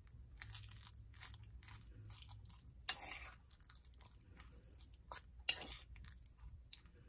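Homemade beef-and-potato dog food being stirred with a little added water in a bowl: irregular soft squelching and scraping, with two sharp clicks about three and five and a half seconds in.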